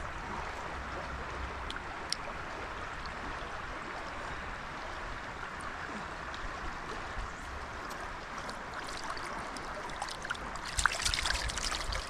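Mountain stream running over riffles and boulders, a steady rushing of water. Near the end a burst of sharper, louder sounds comes in over it.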